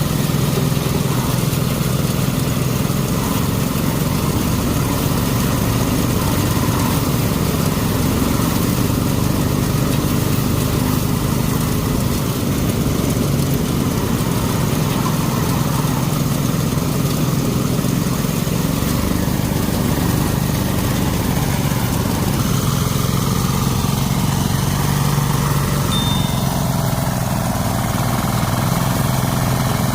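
A small engine running steadily and loudly, its pitch shifting a little in the last third.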